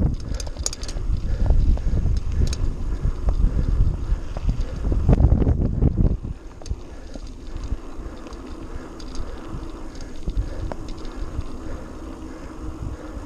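Mountain bike rolling along a dirt singletrack, with wind buffeting the microphone, tyre noise and small clicks and rattles from the bike. The wind rumble drops off about halfway through, leaving quieter rolling noise with a faint steady hum and occasional clicks.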